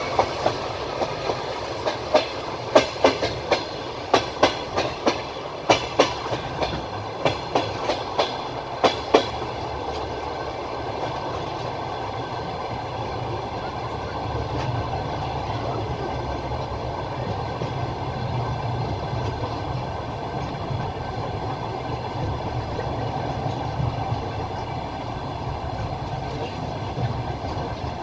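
Train wheels rolling on the rails: sharp clickety-clack knocks over rail joints for about the first nine seconds, then a steady low rolling rumble.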